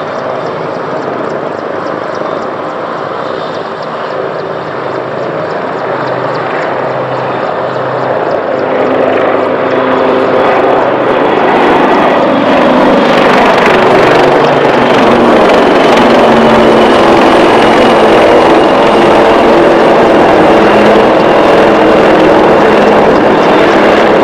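AgustaWestland AW159 Wildcat helicopter's rotor and twin turboshaft engines, growing louder over the first twelve seconds or so as it approaches, then passing close by with its pitch falling.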